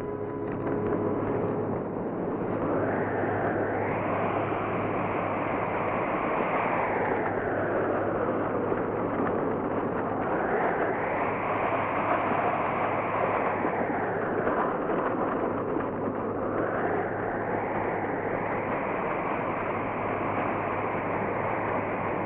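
A horse-drawn wagon team at a gallop: hooves and wheels make a loud, dense rushing rumble that swells and eases three times.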